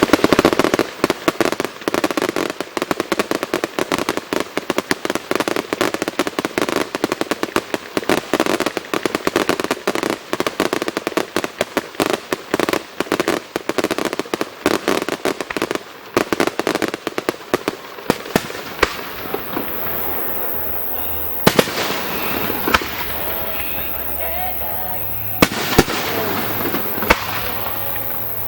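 Fireworks display bursting close overhead: a long barrage of rapid crackling reports, many a second, for most of the first two-thirds, which then thins out and dies away, with several single loud bangs of shells near the end.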